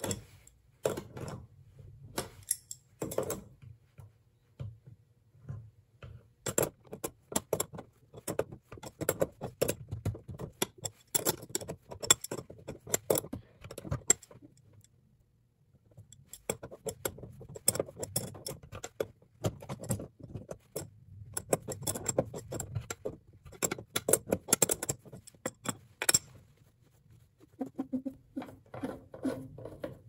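A wrench and pliers clinking and rattling against a brass faucet cartridge as it is unscrewed from the valve body: a quick, uneven run of sharp metallic clicks in two long spells, with a short pause midway.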